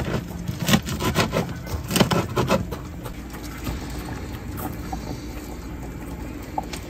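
Knife cutting through a crispy breaded chicken katsu cutlet on a plastic cutting board: a quick run of crunches and knocks in the first two and a half seconds, then quieter handling as the slices are laid onto rice in a pot, over a steady low hum.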